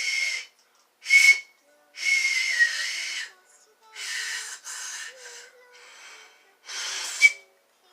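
A person breathing out hard, close to the microphone, about six times in a row with short silent gaps between breaths; some breaths carry a faint whistle.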